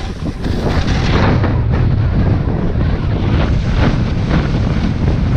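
Wind buffeting an action camera's microphone during a fast ski descent: a heavy, steady rumble. Over it comes a series of hissing scrapes as the skis turn on the snow.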